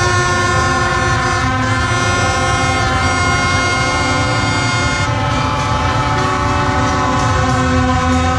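A continuous din of many horns blowing at once, steady overlapping tones at many pitches, over the noise of a big street crowd of celebrating football fans.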